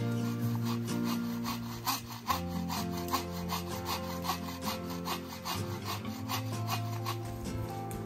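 Hand saw cutting through a dead branch for firewood in quick, even back-and-forth strokes, over background music with sustained chords.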